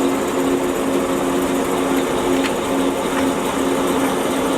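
1941 Monarch 14 WAA geared-head lathe running under power, a steady hum of several even tones from the geared headstock, with the carriage driven along by the lead screw through its engaged half nuts. A couple of faint ticks come about halfway through.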